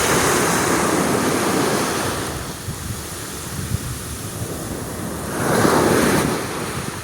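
Sea waves breaking and washing up on a beach, with wind buffeting the microphone. The wash swells loud at the start, eases off, and surges again about five and a half seconds in.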